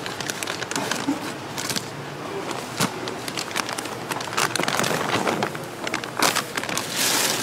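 Plastic packaging crinkling, with clicks and rustles, as a bag of tteok (Korean rice cakes) is snipped open with scissors and the rice cakes are tipped into a pan. The noise comes in several busy stretches, the densest near the end.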